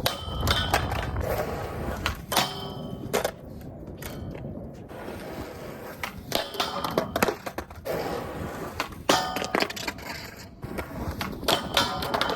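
Skateboard clattering: about five clusters of sharp knocks of the board and trucks hitting the ground, each with a short metallic ring, between stretches of rolling noise.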